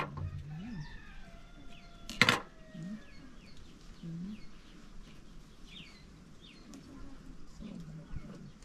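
Chickens clucking, with small birds chirping, and one sharp knock about two seconds in.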